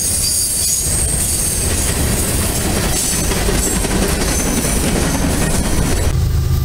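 Freight cars of a mixed freight train rolling past close by: a steady rumble of steel wheels on rail with a high-pitched wheel squeal. About six seconds in it changes abruptly to the steadier sound of a diesel locomotive approaching.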